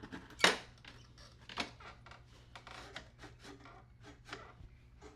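Hands working on a lawn mower's drive belt and tensioner parts: a sharp knock about half a second in, another at about a second and a half, then light clicks and scraping.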